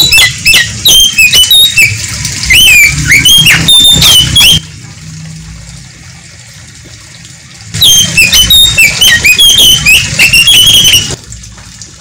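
Oriental magpie-robin (kacer) singing: two loud bouts of rapid, varied whistles, slurs and chirps, the first lasting about four and a half seconds, the second starting about eight seconds in and lasting about three, with a pause between.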